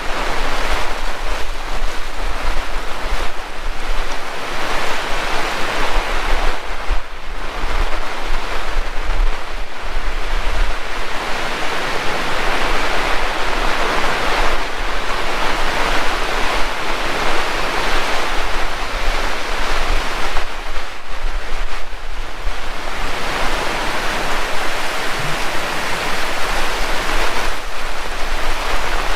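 Heavy rain pouring down in strong wind, the downpour swelling and easing in long gusts, with wind buffeting the microphone as a low rumble.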